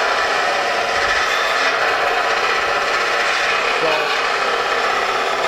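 Ingersoll Rand 12-volt cordless mini belt sander (finger sander) running at full speed, its belt grinding into a spot weld on a sheet-metal car panel to weaken it. It holds a steady grinding whine under heavy pressure without slowing down.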